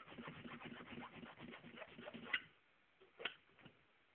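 Hand file rasping along a steel key blank in quick, scratchy strokes, thinning it to a knife edge for self-impressioning. The filing stops about two and a half seconds in with a sharp click, and a second click follows about a second later.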